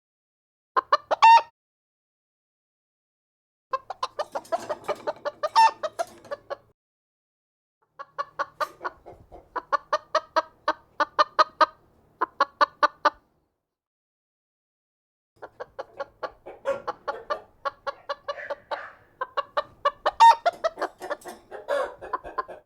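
Chicken clucking: four runs of rapid, repeated clucks, about three or four a second, separated by gaps of silence.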